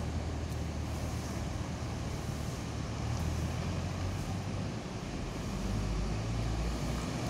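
Diesel engine of an ex-Long Win Alexander Dennis Enviro500 MMC double-decker bus running as it pulls away through a turn and approaches, a steady low hum over traffic noise. It grows louder near the end as the bus comes close.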